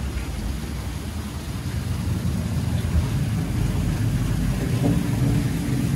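Steady low rumbling noise with no clear tone, growing a little louder about two seconds in.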